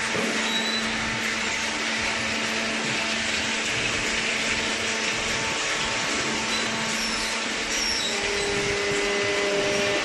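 Machinery of a hydraulic cardboard baler running steadily: a constant rushing mechanical noise with a low hum. A second, higher hum joins about eight seconds in.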